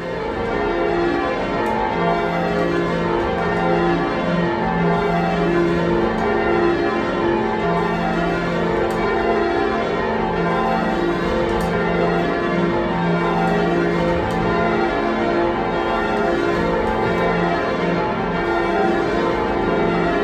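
A ring of eight church bells being rung in changes, a continuous dense peal of overlapping strikes. The bells are six Gillett & Johnston bells cast in 1937 and two older Thomas Wroth bells of 1750, all tuned as an octave with the tenor in F.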